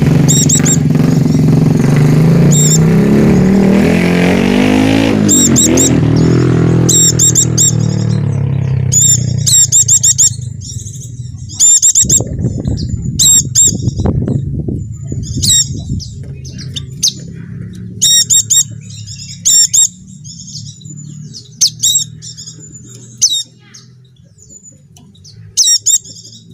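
Small white-eyes (pleci) giving short bursts of high, sharp chirping calls again and again. For roughly the first ten seconds a loud low rumble runs underneath, then fades away.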